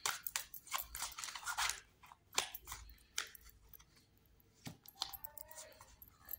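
A deck of tarot cards shuffled by hand: a quick run of card snaps and flicks for the first few seconds, then a few soft taps and slides as a card is drawn from the deck.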